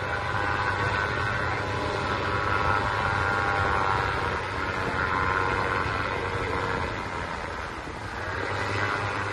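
Paramotor's Moster 185 single-cylinder two-stroke engine and propeller buzzing steadily overhead as it flies past, fading briefly near the end and then coming back up.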